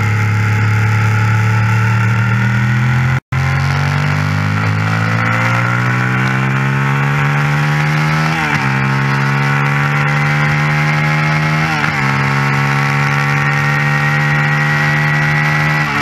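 Suzuki SV650's V-twin engine pulling hard up through the gears. Its pitch climbs steadily, dips sharply at two upshifts about halfway and three-quarters of the way through, then climbs again. The sound cuts out completely for a split second just after three seconds.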